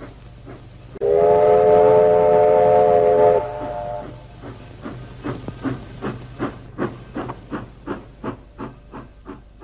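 Steam locomotive whistle blowing one long chord-like blast, then the locomotive chuffing at about three beats a second, fading near the end.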